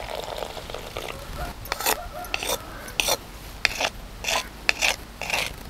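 Warm water trickling into powdered roasted toor dal in a stone mortar. From about a second and a half in, a pestle scrapes and mixes the damp powder against the stone in short gritty strokes, about two a second.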